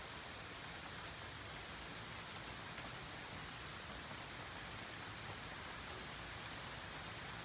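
Rain falling steadily, an even hiss with no change.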